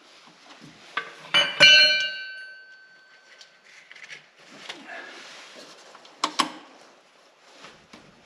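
Metal hand tools clanking against the oil drain plug of an engine sump: a socket wrench with an extension tube. A loud metallic clank about a second and a half in rings on for a couple of seconds. Scattered light ticks follow, then two sharp clicks about six seconds in.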